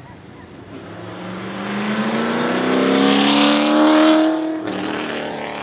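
Holden VE Commodore V8 Supercar's naturally aspirated 5.0-litre V8 accelerating hard as it passes, its note rising steadily in pitch and growing loud. It drops away abruptly about four and a half seconds in.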